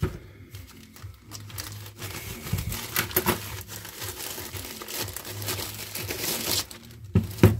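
Plastic bag crinkling and rustling as it is handled, with scattered clicks and two sharp knocks near the end.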